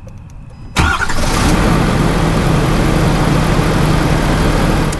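Ford F-350 Super Duty pickup's engine starting suddenly about a second in, then running steadily at idle.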